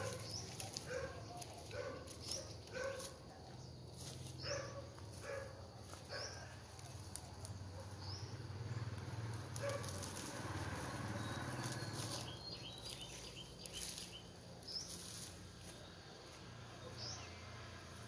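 A dog barking repeatedly, about twice a second, for the first several seconds, over the crackle and rustle of dry brush and bamboo being cut and pulled.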